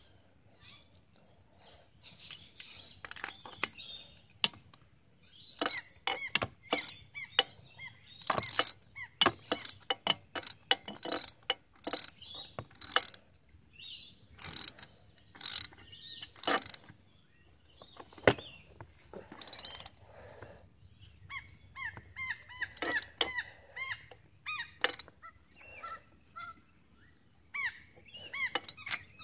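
Ratcheting ring spanner clicking in quick runs of strokes as a fitting on a small motorcycle engine's cylinder head is turned, with the busiest clicking in the middle stretch.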